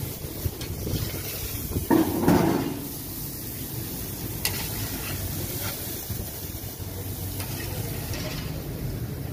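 Marinated chicken pieces sizzling on a smoking charcoal grill grate while a long metal paddle pushes and scrapes them across the grate, with a few sharp clicks. A louder rush of noise comes about two seconds in.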